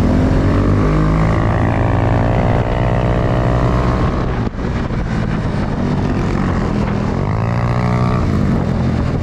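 Suzuki Gixxer 250's single-cylinder engine running under way, heard over wind noise on the microphone. The engine note rises and falls with the throttle, with a short drop in level about four and a half seconds in and a dip and rise in pitch near the end.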